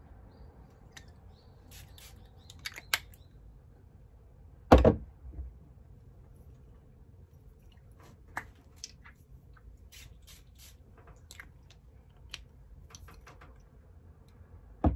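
Small clicks and taps of glass perfume bottles and their caps being handled. About five seconds in comes a short spray from a perfume pump, the loudest sound, and a second brief burst comes just before the end.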